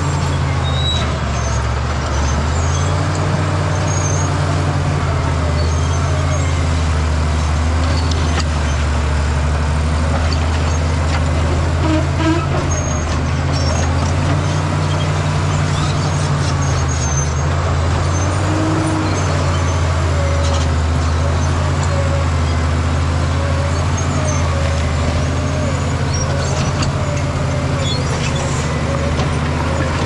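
Caterpillar D7G crawler bulldozer's diesel engine running steadily under load as the blade pushes rock and dirt, with a wavering squeal and scattered clatter over the engine drone.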